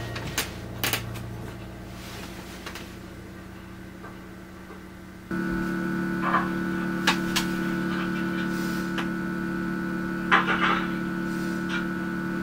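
Quiet small-room sound with a few light clicks and taps; about five seconds in, a steady electrical appliance hum starts abruptly and runs on under a few more clicks.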